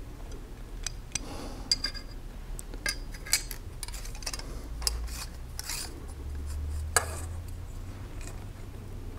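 Combination square's steel rule being turned end for end and set down on paper over a wooden board: scattered light metal clicks and knocks with brief scraping, and one sharper knock about seven seconds in.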